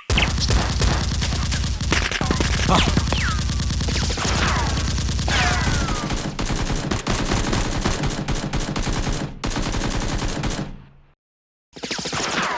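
Rapid automatic gunfire, shot after shot in a continuous stream, with several falling whistling tones over it. It cuts off suddenly about eleven seconds in and starts again near the end.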